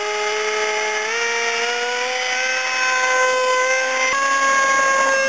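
Radio-controlled model plane's motor and propeller running at speed: a steady high-pitched whine that steps up in pitch twice, about a second in and again about four seconds in.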